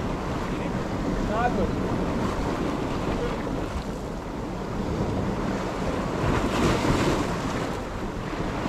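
Sea waves breaking and washing over the rocks, with wind buffeting the microphone; the surge swells louder about seven seconds in.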